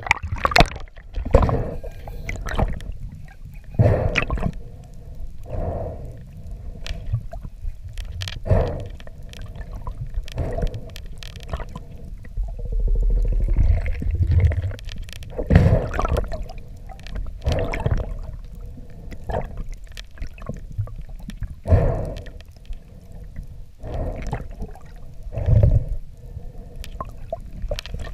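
Underwater sound from a camera mounted on a speargun during a freedive descent: water rushing over the housing in surges every couple of seconds, over a faint steady hum.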